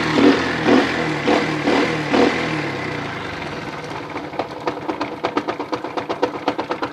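Alpha 72 cc single-cylinder four-stroke moped engine running at high revs, then dropping back toward idle. From about four seconds in, a regular knock sounds about four to five times a second: the engine knock that the owner cannot explain and that almost disappears at high revs.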